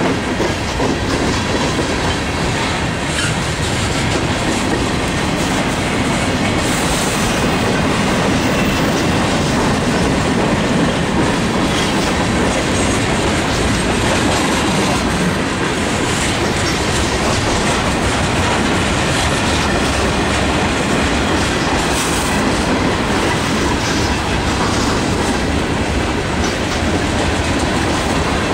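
Freight cars of a long CSX manifest train (tank cars, boxcars and covered hoppers) rolling steadily past, steel wheels running on the rails.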